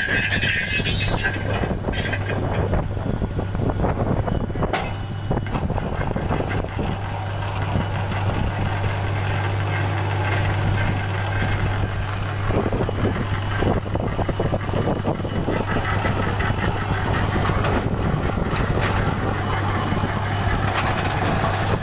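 Truck-mounted borewell drilling rig running as it drills: a steady low engine drone with a continuous mechanical rattle over it.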